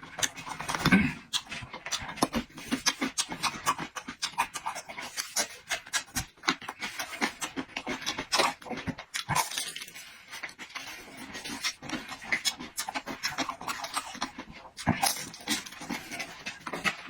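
Close-miked chewing and lip-smacking of someone eating pan-fried dumplings: a dense run of rapid, irregular wet clicks and smacks with breathing through the nose.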